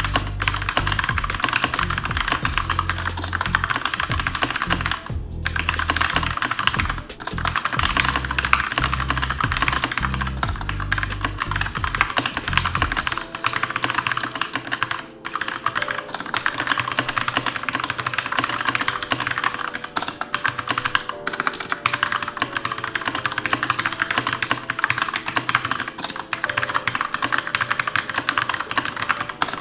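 Fast, continuous typing on a Keychron K2 mechanical keyboard: a dense, unbroken clatter of key presses.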